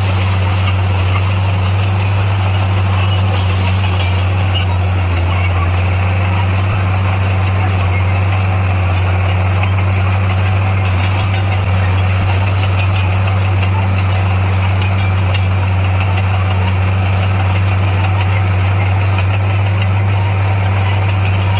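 Diesel engine of heavy earthmoving equipment running steadily at an even pitch, with a deep, constant hum.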